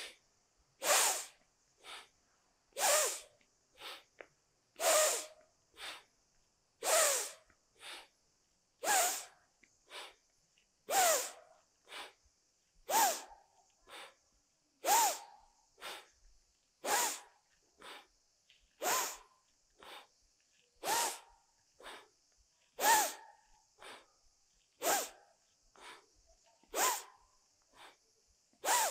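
A woman's forceful rhythmic breathing while squatting up and down, exhaling on the way down and inhaling on the way up. A strong breath comes about every two seconds, with a softer breath between.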